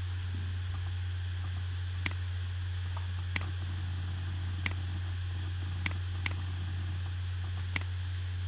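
Computer mouse clicking: six short, sharp clicks at irregular intervals of about one to one and a half seconds, over a steady low electrical hum.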